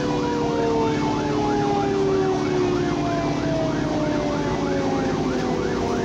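Fire engine siren on a fast yelp, rising and falling about three times a second, with a lower siren tone sliding slowly down in pitch under it. It is heard from inside the truck's cab over the rumble of the running truck.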